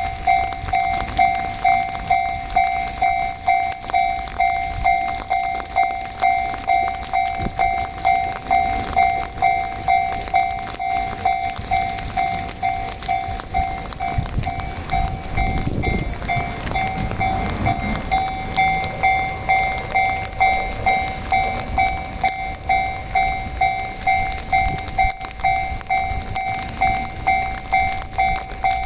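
Japanese level-crossing alarm ringing its repeated ding, about one and a half strokes a second. Midway through, a limited express train passes the crossing with a low rumble of wheels on the rails.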